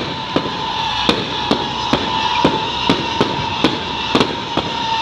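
Fireworks and firecrackers going off in a rapid string of sharp bangs, about two to three a second, over a steady high whine.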